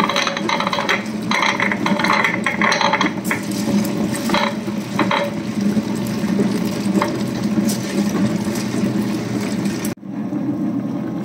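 Tabletop wet grinder running, its stone rollers turning in the steel drum as they grind soaked sorghum into batter: a steady hum with irregular rattling clicks over the first few seconds.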